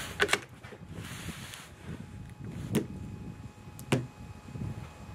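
Sharp metallic clicks and knocks from handling a BSA Century .22 LR bolt-action rifle: two quick clicks at the start, a short rustle, then two single sharp knocks about three and four seconds in.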